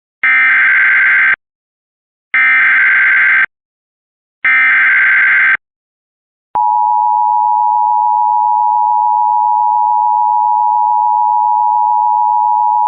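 Emergency Alert System SAME header: three bursts of rapid two-pitch digital data tones, each about a second long and a second apart. About six and a half seconds in they give way to the steady two-tone EAS attention signal, which keeps sounding. Together they mark the start of a new emergency alert.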